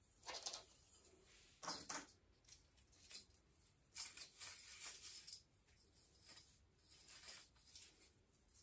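Faint, intermittent rustling and crinkling as Christmas ornaments are handled and hung on the plastic branches of an artificial Christmas tree, in short bursts with a longer spell about four seconds in.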